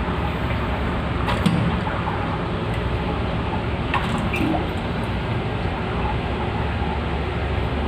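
Water running in a toilet as it is flushed to empty the tank, a steady rush with a couple of brief clicks.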